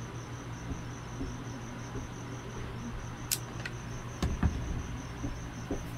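Insect chirping in rapid, even, high pulses over a steady low hum. A few sharp clicks and a louder knock come about three to four and a half seconds in, as a rechargeable AA cell is handled on a tabletop.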